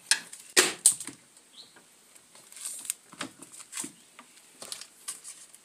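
Small containers being set down in a refrigerator's freezer compartment. A few sharp knocks and clicks against the freezer's plastic shelf and walls come in the first second, then lighter scattered taps.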